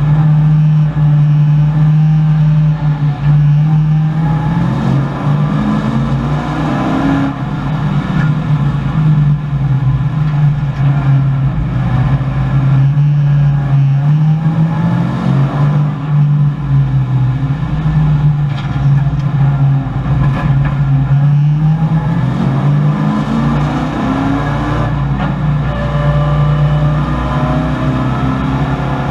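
V8 engine of a 1984 Chevrolet Camaro race car, heard from inside the cabin at racing speed. The engine note holds steady, then climbs and drops back about three times as the car accelerates and the driver lifts or shifts.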